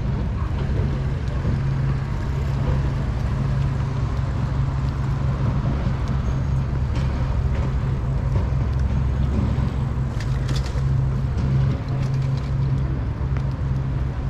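Steady low rumble of outdoor city background, with a few faint clicks about ten seconds in.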